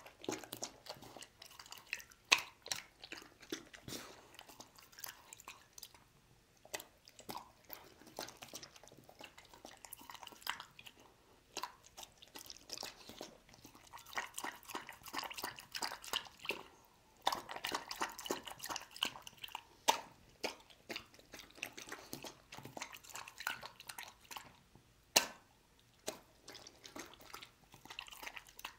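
A dog eating chicken soup from a ceramic bowl, lapping broth and chewing chicken pieces: wet slurps, smacks and clicks in irregular bursts, with a few sharper clicks standing out.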